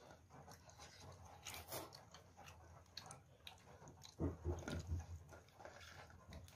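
Soft, irregular wet clicks and smacks of food being handled and eaten, with a louder cluster about four seconds in.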